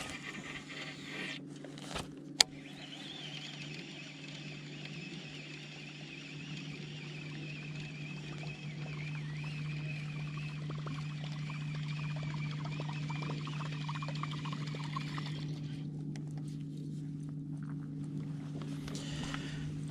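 A fishing reel whirring as a topwater plopper lure is retrieved, starting a couple of seconds in just after a sharp click and stopping abruptly near the end, over a steady low motor hum that grows slightly louder.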